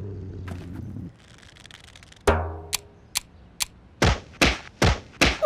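Cartoon sound effects and percussion: a low rumble stops about a second in, then a sudden hit with a falling sweep, a few sharp clicks, and a run of heavy drum-like thumps about two or three a second as the cartoon bulldog scrambles after the monkey.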